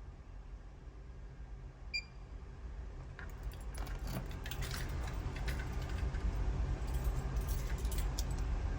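A single short, high beep about two seconds in, then a growing run of light metallic clinks and jingles over a low handling rumble that gets louder toward the end.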